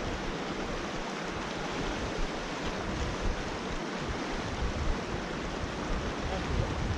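River current rushing steadily, with uneven low rumbles of wind on the microphone.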